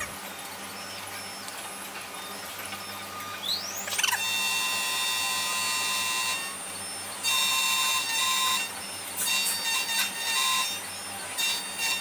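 Xhorse Dolphin XP-005 automatic key cutting machine milling an HU101 key blade. Its cutter spindle rises in pitch about four seconds in and then holds a steady high whine, growing louder at intervals as the cutter bites into the blade.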